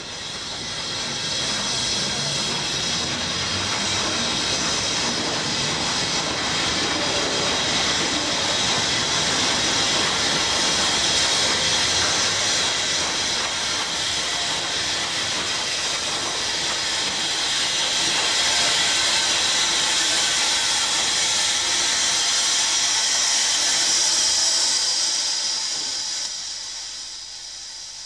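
Steam locomotive blowing off steam: a long, steady hiss that builds over the first couple of seconds and dies away near the end.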